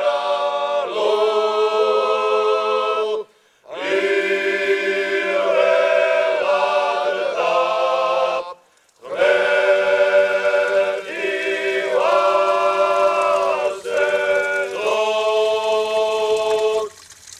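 Georgian men's choir singing a makruli, a Rachan polyphonic wedding song, unaccompanied in several parts over a held low drone. The singing breaks off twice briefly, about three seconds in and again about halfway, and ends on a held chord just before the close.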